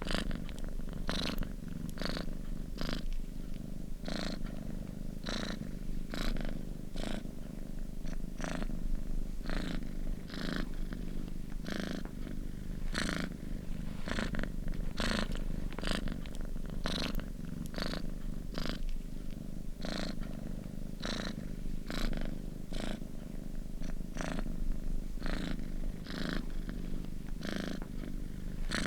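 Domestic cat purring close up: a steady low rumble with a rhythmic rasp about one and a half to two times a second.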